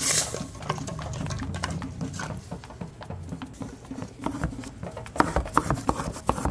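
Kitchen clatter at the stove: a run of light taps and knocks of pot and utensils, a sharp one at the start and louder, closer-spaced ones near the end, over faint background music.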